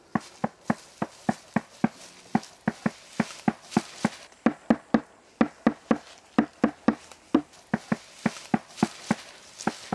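A drum beaten with steady single strokes, about three a second with some louder accents, as a signal for people to follow by ear.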